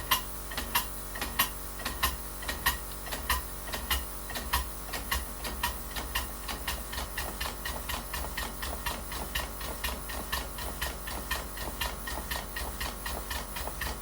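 Miniature live-steam locomotive running on the stand, its exhaust beating over a steady steam hiss while the valve rod's turnbuckle is adjusted to set the valve timing. The beats start uneven, alternating loud and soft, and become quicker and evenly spaced as the setting improves.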